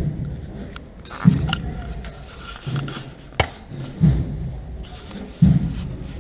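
A deep drum beats slowly and evenly, about one beat every second and a half, each beat fading out, in the steady pace of a procession march. A single sharp click comes about halfway through.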